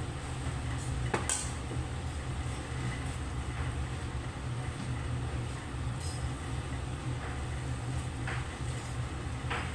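A metal spatula scraping and tapping against a wok a few times during stir-frying, a couple of scrapes about a second in and two more near the end, over a steady low rumble from the stove.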